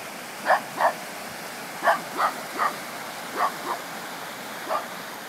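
A dog barking, about eight short barks in pairs and threes, over the steady rush of fast-flowing floodwater in a canal.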